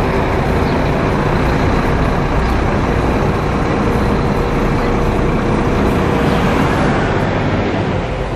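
Diesel coach engines running close by: a Scania-chassised Marcopolo Paradiso 1800 DD double-decker moving off slowly while other coaches idle, a steady low rumble. A faint steady whine sits on top for a few seconds midway.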